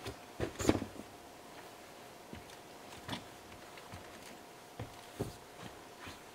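Scattered knocks and clunks of gear being pushed into a rooftop tent and feet on its metal telescopic ladder, the loudest cluster about half a second in and single knocks after that.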